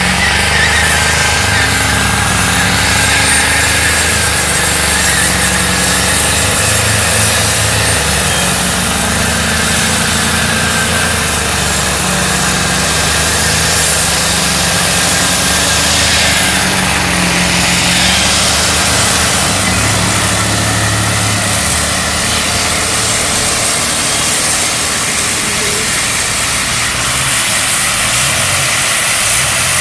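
Full-size sedan's V8 held at high revs in a long burnout, with the rear tyres spinning in place on the wet road. The engine pitch rises and falls as the throttle is worked.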